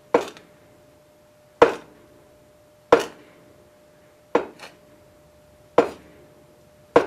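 Sheet metal knocking against a bench vise as it is bent by hand over a radius, a little at a time: six sharp knocks about a second and a half apart.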